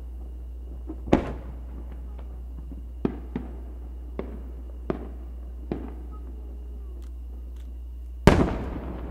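Aerial fireworks shells bursting: a sharp bang about a second in, a run of smaller bangs between three and six seconds, and the loudest boom near the end, which rumbles on as it echoes away.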